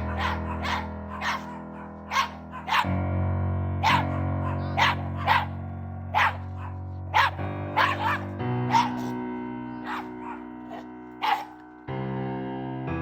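A dog barking in a dozen or so short, sharp barks at irregular intervals, over background music whose chords change every few seconds.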